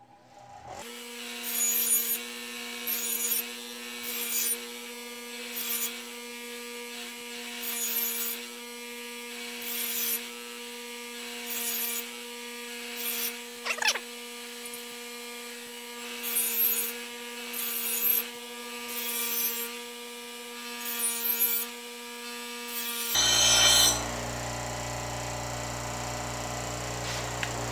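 Bench grinder running with a steady hum as a steel mulching mower blade is ground against the wheel in short rasping passes, about one every second and a half, taking the rough edge off. About four seconds before the end the grinder's hum stops and a low steady rumble remains.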